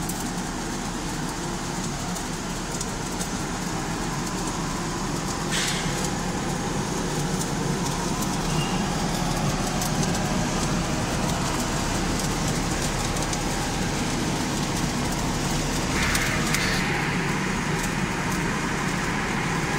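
Industrial hot-air popcorn popper running: a steady drone from its motor and blower. A short hiss comes about six seconds in, and a higher hiss joins for the last few seconds.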